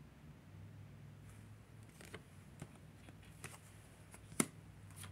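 Tarot cards being handled and laid on a table: a few light clicks and taps of card on card, the loudest a sharp snap about four seconds in.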